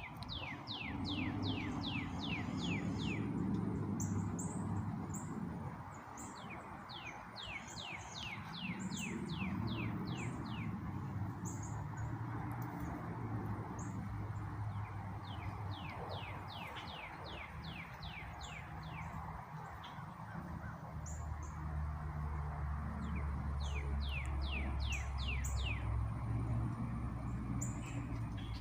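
Forest birdsong: one bird repeats a song of about ten quick, falling whistled notes roughly every eight seconds, four times, while other birds give short high chirps. A steady low rumble runs underneath.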